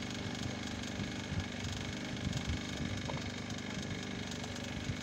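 Engine on a fishing boat running steadily with an even low hum, with a few low thumps about midway.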